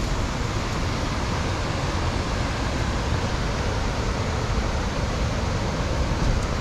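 Steady rushing roar of a large waterfall in heavy flow after days of rain.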